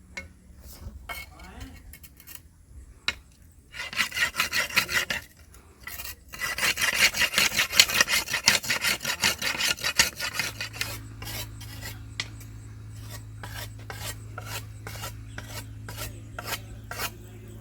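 Rhythmic rasping, scraping strokes, several a second, in short bouts that are heaviest in the middle. From about ten seconds in, a steady low hum runs under fainter strokes.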